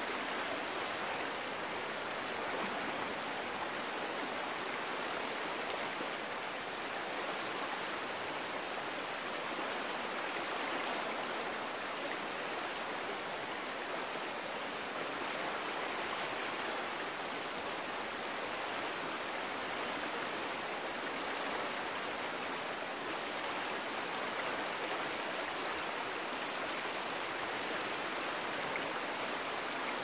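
Creek flowing steadily: an even, unbroken rush of running water.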